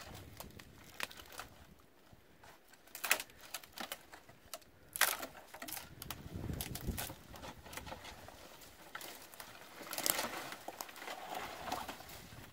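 Dry brush and twigs crackling and snapping, with a few sharp cracks, as an old wooden crate is worked loose and dragged out through the debris. A denser stretch of scraping and rustling comes near the end.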